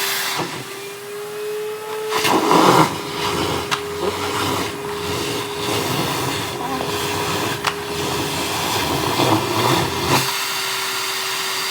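Vacuum cleaner running with a steady motor whine. From about two seconds in until near the end, a rougher rushing, rattling noise is laid over it as the nozzle works over a surface, with a couple of sharp clicks.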